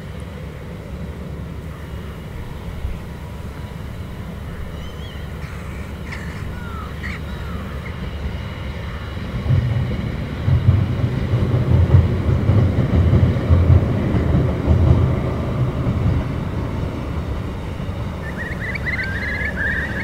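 Low rumble of a diesel train passing on the line along the estuary, building to its loudest about halfway through and then easing off. A few short bird calls sound over it early on, and a bird chatters near the end.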